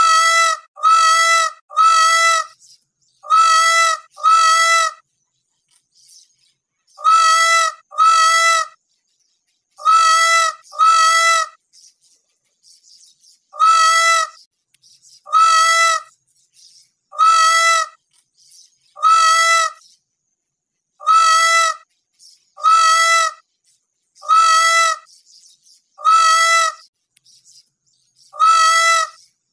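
Peacock (Indian peafowl) giving its loud, wailing call over and over, each call under a second. At first the calls come in quick runs of two or three, then settle into single calls about every two seconds.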